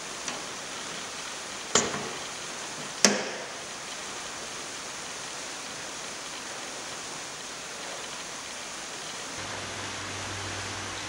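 Two sharp knocks about a second apart as the saddle heating tool is handled and set against the pipe, over a steady hiss; a low hum comes in near the end.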